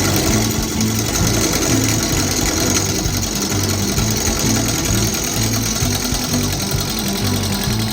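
Wood lathe spinning a rough oak blank while a turning tool cuts it: a steady cutting hiss with a fast, even, machine-like rhythm underneath.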